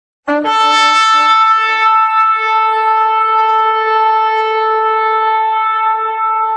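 Shofar (ram's horn) blown in one long blast: it starts suddenly after a short silence with a brief low note that jumps up to a higher, bright note, then holds that note steadily.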